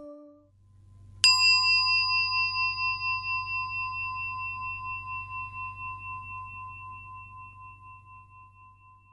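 A singing bowl struck once, ringing with a slow wavering pulse as it fades away over several seconds, marking the end of a section of the sutta recitation. A faint low hum lies underneath.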